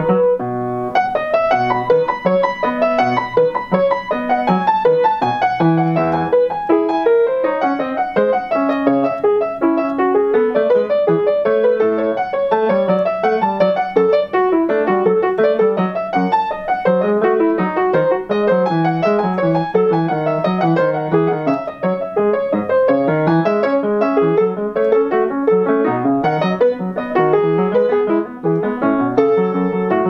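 Solo piano music: a piece of quick, evenly running notes.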